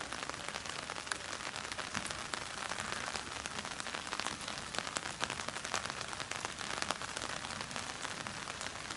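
Steady monsoon rain falling, a continuous hiss with many separate drop hits throughout.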